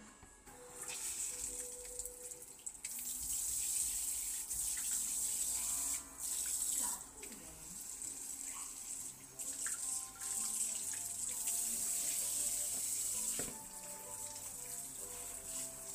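Water running from a kitchen faucet through a clip-on swivel spray aerator and splashing into the sink, starting about a second in. The flow breaks off and changes several times as the head is turned between its spray modes.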